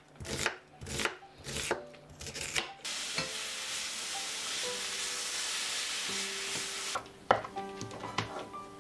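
Kitchen knife chopping an onion on a wooden cutting board, about three chops a second. This gives way to a steady sizzling hiss for about four seconds. Near the end come light scrapes and clicks of a wooden spoon in a saucepan, with soft music notes underneath.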